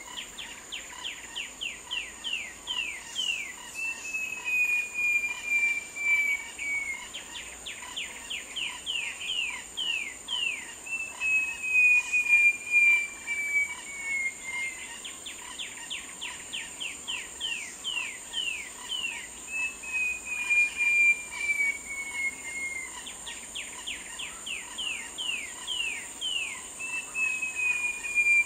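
Short-tailed babbler singing: a long, slowly falling clear whistle, then a quick run of about a dozen sharp falling notes, the pair of phrases repeated about every eight seconds. A steady high insect drone runs underneath.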